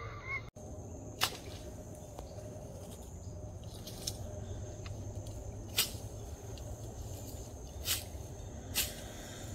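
Reed stems and brush snapping as they are broken and pulled out by hand at a pond's edge: about five sharp snaps spread over several seconds, over a steady low rumble.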